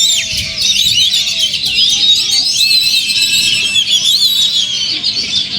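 Oriental magpie-robins (kacer) singing over one another in a dense chorus of quick whistles, trills and chirps.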